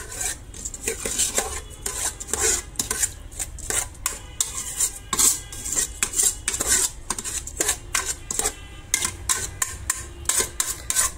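Metal spoon scraping and clinking against the inner pot of an electric rice cooker in quick, irregular strokes, stirring drained soaked rice as it fries in the oil left from the meat.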